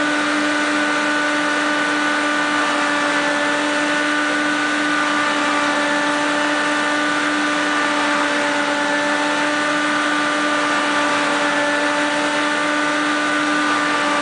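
Vacuum cleaner motor running steadily at a constant pitch, a steady whine over a rushing hiss.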